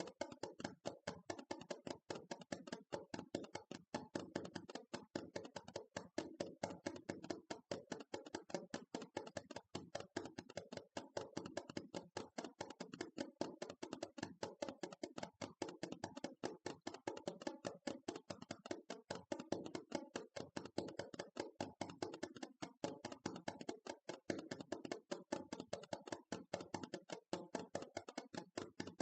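Rapid ASMR tapping, many quick taps a second in an even, unbroken run.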